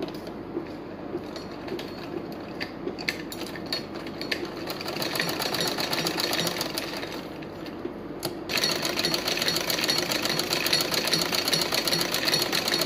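Usha sewing machine stitching a seam: a fast, even clatter of the needle and mechanism. It gets louder and busier about eight seconds in.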